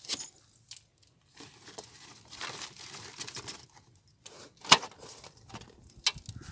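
Bangles jingling on a wrist and crumbly fertilizer mix rustling as a hand scoops it from a steel bowl, with a few sharp clinks, the loudest about three quarters of the way through.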